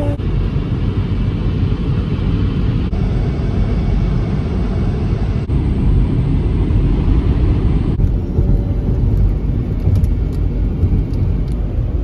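Steady low rumble of road and engine noise inside a moving car, heard as several short clips joined with abrupt changes about 3, 5½ and 8 seconds in.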